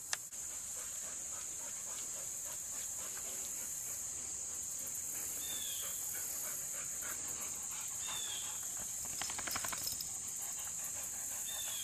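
Steady high-pitched drone of insects. Three short high squeaks, each falling in pitch, come a few seconds apart, and a brief patter of clicks comes about nine seconds in.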